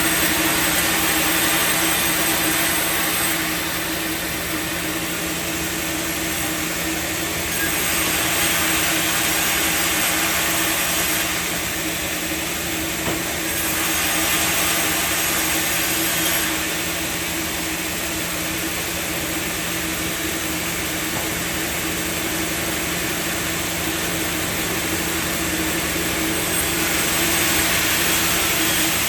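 Sawmill machinery running with a steady hum. A louder, higher rushing noise swells four times, for a few seconds each.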